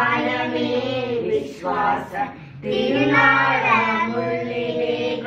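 Children and women singing a Malayalam hymn together. Two sung phrases with a short breath pause about two seconds in, the second phrase long and held.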